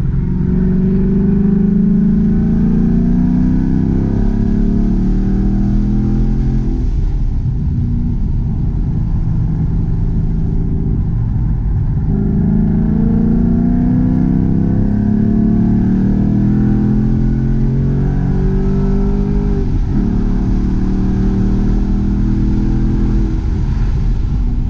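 2018 Chevrolet Camaro ZL1 1LE's supercharged 6.2-litre V8 pulling hard on track, revs climbing in long runs. The revs drop off twice as the car slows, then climb again.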